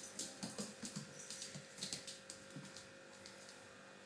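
Chihuahua puppy's claws clicking on a tile floor as it scampers about: a quick, irregular run of small clicks that stops about three seconds in.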